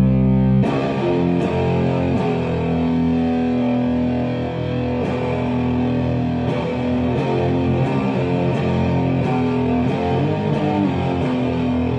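Distorted electric guitar played through a Hovercraft Dwarvenaut 20 tube amp head, freshly fitted with new 12AX7 preamp tubes and JJ EL84 power tubes; the owner says the swap cured its noise. A held chord rings, then under a second in a heavy riff of picked notes and chords starts and runs on at a steady, loud level.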